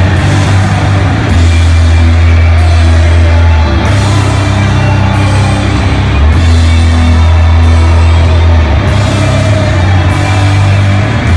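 Doom metal band playing loud and live: heavily distorted guitar and bass holding long, slow low chords that change every second or two, with drums and cymbal crashes roughly every second and a quarter.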